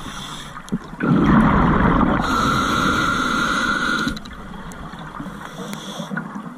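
Scuba regulator breathing underwater, close to the microphone: a loud rush of bubbling about a second in, turning into a steady hiss with a thin whistle that cuts off about four seconds in, then only low water noise.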